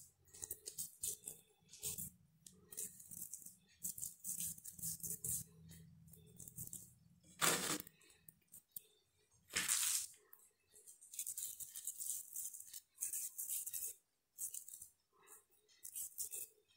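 Hands scooping and shaping a soft, mashed vegetable filling into patties: quiet, irregular short rustles and scrapes, with two louder scrapes about seven and a half and ten seconds in.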